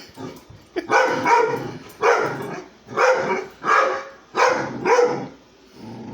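Dog barking repeatedly at an approaching vacuum cleaner, about six barks roughly a second apart, with a short lull near the end.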